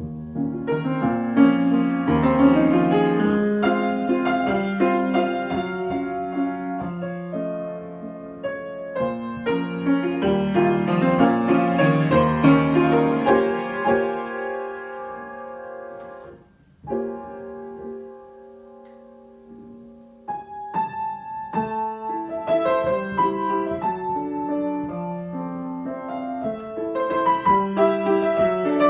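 Solo piano improvisation: full, ringing chords and runs, a brief break about two-thirds of the way in, a quiet held chord, then livelier repeated notes.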